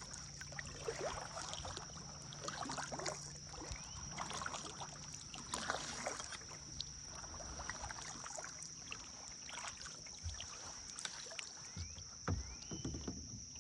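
Kayak paddle strokes: the blades dip and splash in the water at an irregular pace, with water dripping off them. A steady high-pitched whine runs underneath.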